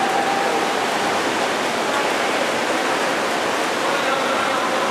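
Steady wash of splashing water from swimmers racing in an indoor pool, echoing in the hall.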